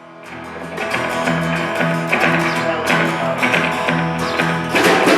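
Rockabilly band playing the guitar-led instrumental intro of a song live, fading in over the first second with a steady run of repeated picked notes. Near the end the sound gets louder and fuller as more of the band comes in.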